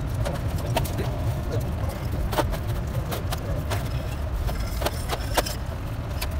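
Sharp metal clinks and knocks, irregular and a dozen or so, as a truck gearbox casing and its bearing flange are handled and set down on a metal tray, over a steady low rumble.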